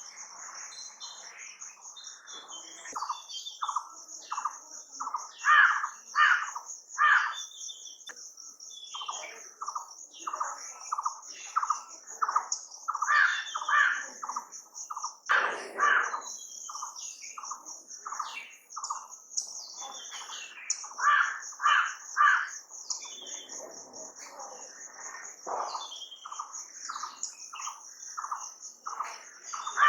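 Birds calling repeatedly in short, clear notes, over a steady high-pitched insect drone.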